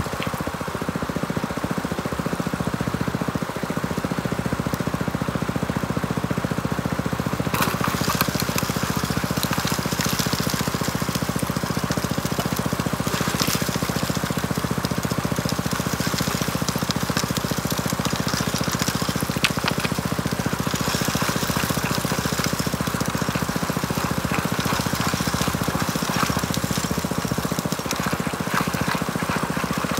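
Small gas engine of the water pump feeding a high banker running steadily, with water rushing through the sluice and a few sharp clicks now and then.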